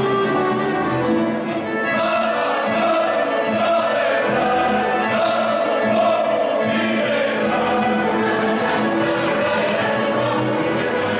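Live Serbian folk music played by a small band, with voices singing in a group over it, steady and continuous.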